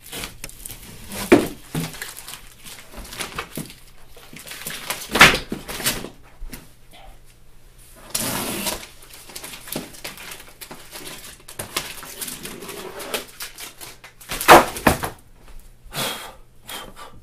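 Handling a plastic reptile enclosure and pulling packing material off it: irregular knocks and thumps with bursts of rustling and scraping, the loudest knocks about five seconds in and again near the end.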